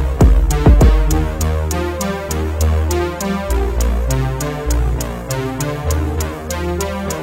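Electronic music: synthesizer bass notes under a steady drum-machine hi-hat tick. The kick drum drops out about a second in.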